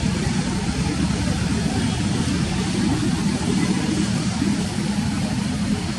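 Airbus A330-200 airliner's twin jet engines running as it rolls along the runway: a steady low drone with a broad hiss over it.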